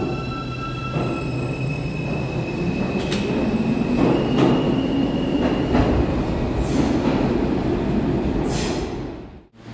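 R160A subway train pulling out of an underground station, with a high steady electric whine and heavy rumble. Its wheels give several sharp clicks over rail joints partway through, and two brief high squeals slide down in pitch near the end.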